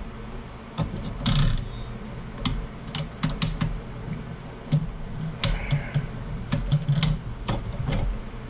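Hands handling thread and small metal parts at a leather sewing machine's hook and needle, making irregular light clicks and taps with a couple of brief rasps.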